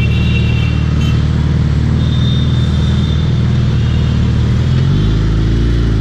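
Suzuki Hayabusa's inline-four engine running steadily while riding, its pitch shifting near the end.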